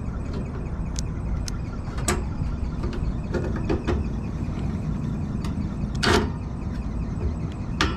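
Scattered metallic clicks and taps of sheet-metal screws and panels being handled while a screw is worked toward its hole in a furnace heat exchanger, the loudest clunk about six seconds in. A steady low rumble runs underneath.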